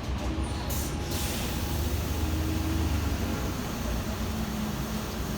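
London double-decker bus running with a steady low engine rumble, and a short hiss of air about a second in, typical of the air brakes releasing.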